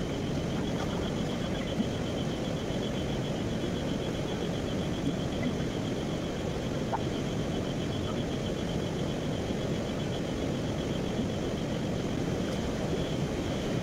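Steady rush of river water, with a high, fast, evenly pulsed chirping running over it.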